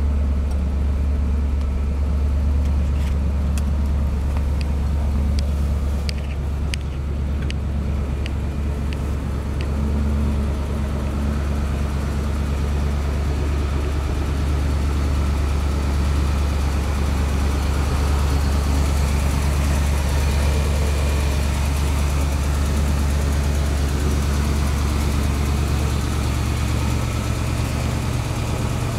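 Dodge 318 V8 engine idling steadily, a low even hum, with a few light clicks in the first third.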